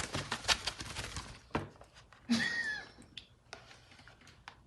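Paper picture book being handled: a quick run of rustles and taps from the pages in the first second, then a few softer taps and a brief rustle.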